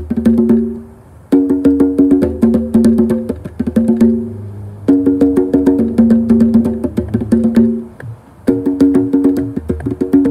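A pair of congas played with the bare hands in fast runs of strokes, the two drums ringing at two different pitches. The runs stop briefly about a second in, around four seconds in and about eight seconds in, then start again.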